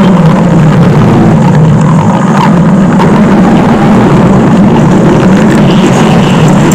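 A stomach-growl sound, looped into a very loud, steady low rumble with no pauses.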